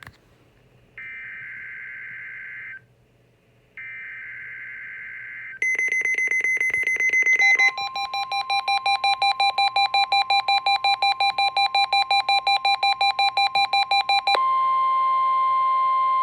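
Weather radio test alert signal: two harsh, warbling digital SAME header data bursts with a short gap between them, then a fast run of electronic alert beeps lasting about nine seconds, then a steady alert tone near the end.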